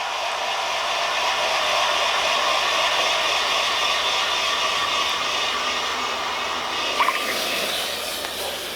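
Red-hot steel hammer head hissing and sizzling in a water quench, a steady hiss that swells and then eases, with a short clink about seven seconds in.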